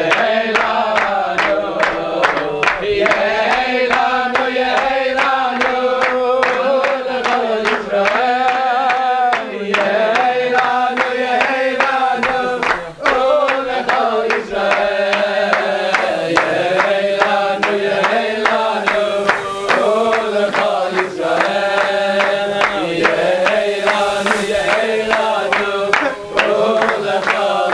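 A group of people singing a song together, clapping their hands in time to a steady beat.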